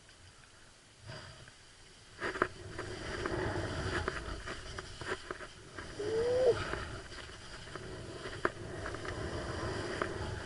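Skis scraping and hissing over firm, wind-rippled snow during a downhill run, starting about two seconds in, with scattered sharp clatters. About six seconds in there is a brief rising-then-falling whine.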